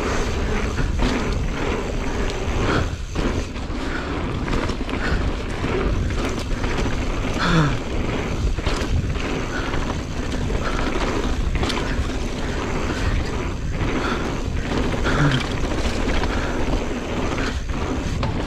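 Mountain bike being ridden along a dirt trail: a steady rushing noise with frequent rattles and knocks as the bike clatters over bumps.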